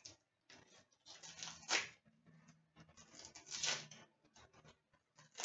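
Trading cards being handled and slid through the hands: papery rustling in two main bursts, about a second in and again around three to four seconds in, the first ending in a sharp snap.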